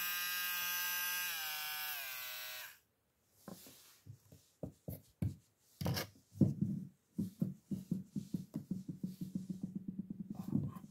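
Cordless mini rotary drill running with a steady whine, then switched off: its pitch falls and it stops about two and a half seconds in. Then a few knocks, followed by quick rhythmic rubbing strokes on a wooden board, about five a second.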